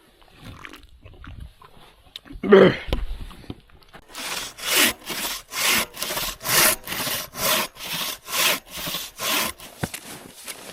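Hand saw cutting through wood: a steady back-and-forth of strokes, about two a second, starting about four seconds in and stopping near the end. A brief loud sound comes a couple of seconds before the sawing starts.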